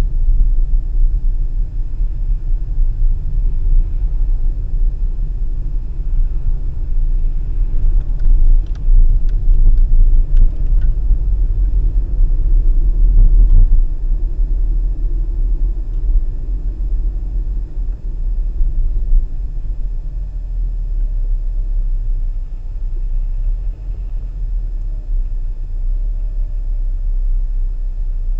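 Low, steady rumble of a car driving in slow town traffic, heard through a dashboard camera inside the cabin, with a few faint clicks near the middle.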